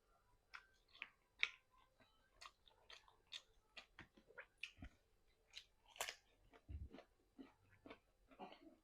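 A person chewing fried chicken close to the microphone: irregular short, sharp mouth clicks, one to two a second.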